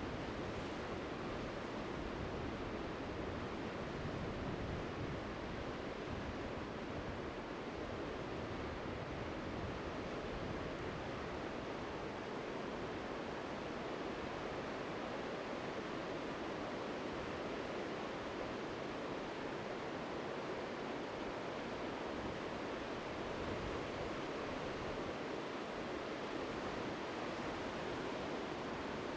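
Ocean surf breaking, heard as a steady, even rush of noise with no single wave standing out.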